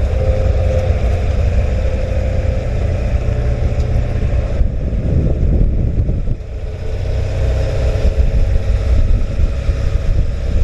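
Off-road vehicle engine running with a steady low drone, easing off for a second or two about halfway through and then picking back up.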